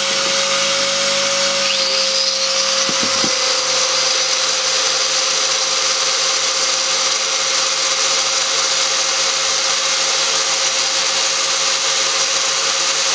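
Two small angle grinders, a Makita 9558 HN and an AEG WS 12-125, running with no load on a test run after their gearboxes were reassembled. About two seconds in, the second grinder spins up with a rising whine, and then both run steadily together.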